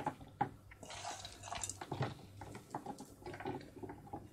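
Crushed walnut pieces scattered by hand onto a sheet of yufka pastry: a run of small irregular ticks with a brief rustle about a second in.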